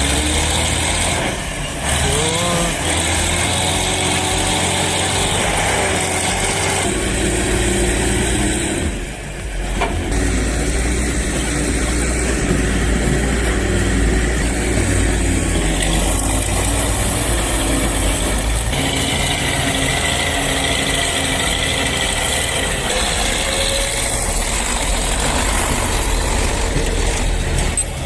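Heavy diesel engines of earthmoving machinery running and working, with a brief drop about nine seconds in where the sound changes to another machine.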